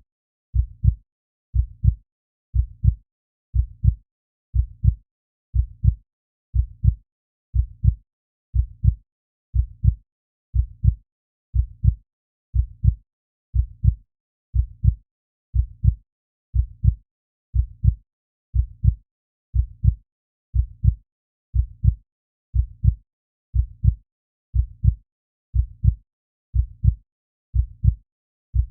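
Heartbeat sound effect: a steady, low double thump (lub-dub) about once a second, around 60 beats a minute.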